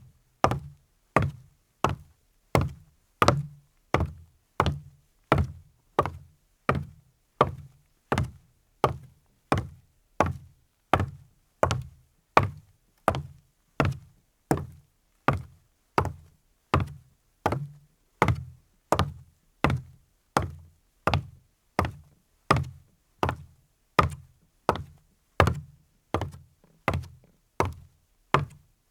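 A man walking at an even pace in leather-soled shoes on a wooden deck, about three steps every two seconds. Each heel strike is a sharp knock with a hollow, boomy ring from the boards.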